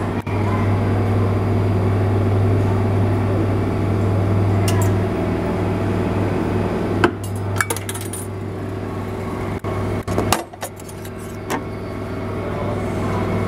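Souvenir-medal pressing machine running: a steady electric-motor hum as the chain-driven rollers press a coin into an elongated souvenir medal. About halfway through come several sharp metallic clicks and clinks as the finished medal drops through to the outlet tray.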